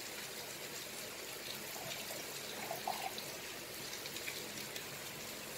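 Faint steady hiss, with a few light clicks about halfway through as a small glass vanilla bottle is handled over the blender jar.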